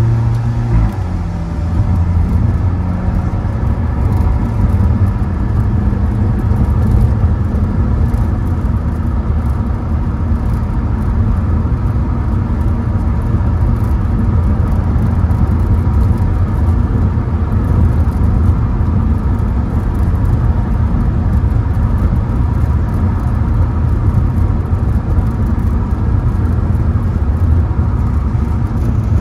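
A car's engine and tyre noise heard from inside the cabin while driving at speed on a wet track: a steady low drone. The engine note shifts in pitch during the first few seconds, then holds steady.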